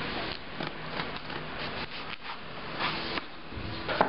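Utility knife blade slitting the plastic shrink-wrap along the edge of a cardboard laptop box: irregular scratchy rustling with a few small clicks.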